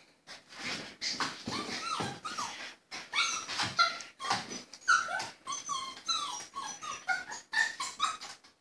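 Two Chinese Crested puppies play-fighting: rough, growly bursts for the first few seconds, then a rapid run of short, high yips and whines that rise and fall in pitch.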